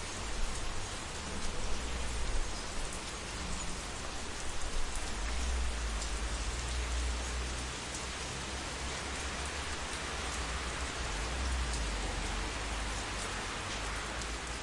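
Steady rain falling during a thunderstorm, with a low rumble of thunder underneath that swells and fades.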